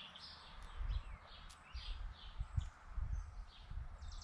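Birds chirping in short, repeated notes, with a few faint sharp clicks of saw-chain links being handled and low wind rumble on the microphone.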